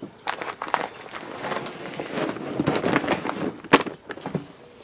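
Irregular crackling and rustling of packaging being handled, with one sharper snap about three-quarters of the way through.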